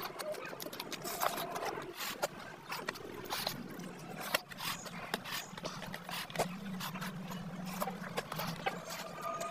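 Close-up eating sounds: wet chewing and lip-smacking, with many short clicks, as a hand squishes and mixes curry-soaked rice in a steel plate. A faint low hum runs underneath.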